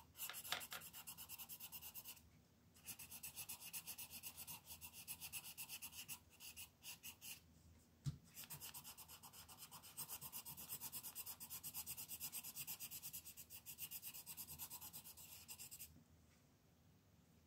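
Coloured pencil scratching on paper in quick, even back-and-forth shading strokes, in several runs with short pauses between them. There is a single soft knock about eight seconds in, and the scratching stops shortly before the end.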